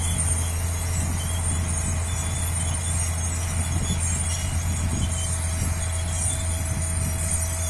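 Steady low mechanical drone with a constant high hiss over it, unchanging throughout.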